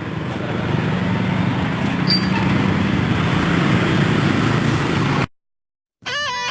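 Steady roadside traffic noise with a low engine hum and a brief high chirp about two seconds in, cutting off suddenly about five seconds in. Strummed guitar music starts near the end.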